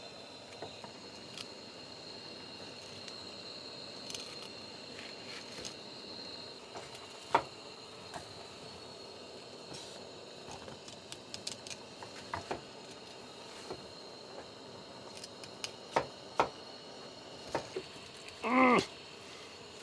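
A filleting knife clicking and scraping against a wooden cutting board as a largescale blackfish is cut off the bone: scattered light taps with a few sharper knocks, over a faint steady high-pitched hum. Near the end a short pitched sound that wavers up and down stands out as the loudest thing.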